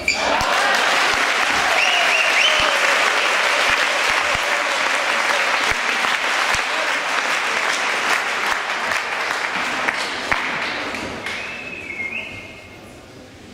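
Spectators in a hall applauding, steady clapping that dies away after about eleven seconds.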